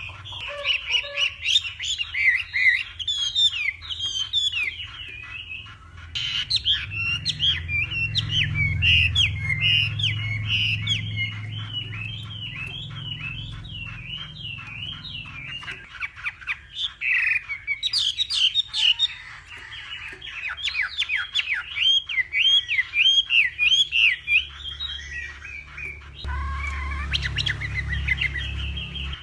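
Chinese hwamei singing a long, rapid run of varied loud whistled notes, the song breaking off and resuming a few times.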